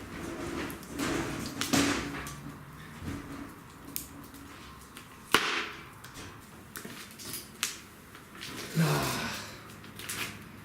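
Wood fire crackling with scattered sharp pops, the loudest a single crack about five seconds in, under brief low murmured voices.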